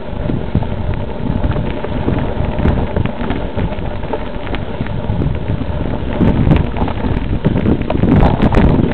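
Wind buffeting the microphone of a camera riding on a mountain bike, with constant rattling and knocks as the bike rolls over a rough dirt trail; it grows louder near the end.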